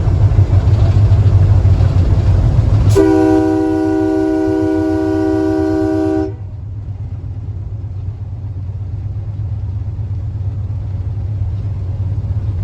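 Train horn sounding one steady blast of about three seconds, starting about three seconds in and cutting off sharply, over the low rumble of the train running on the rails.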